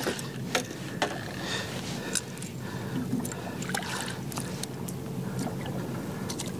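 Steady water and boat noise aboard a small open boat at sea, with a few small clicks and knocks scattered through it.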